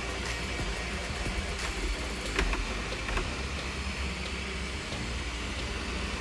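Flashforge AD5X 3D printer running: a steady whir of fans and motors, with a couple of sharp clicks about two and a half and three seconds in.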